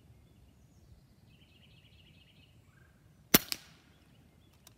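Single shot from a Diana Outlaw .22-calibre PCP air rifle: one sharp report a little over three seconds in, with a weaker crack a fraction of a second after it.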